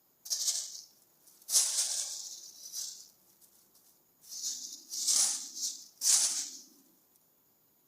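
Crinkly plastic rustling in about five short bursts as a kitten plays with it.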